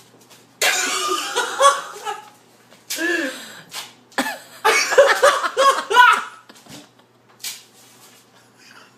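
A person laughing hard in loud fits, breathy and pulsing, over the first six seconds or so, fading to a few faint sounds near the end.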